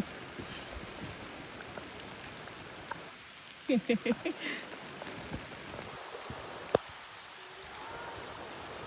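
Steady rain falling, an even hiss of drops. About four seconds in there is a brief voice-like sound, and near seven seconds a single sharp click.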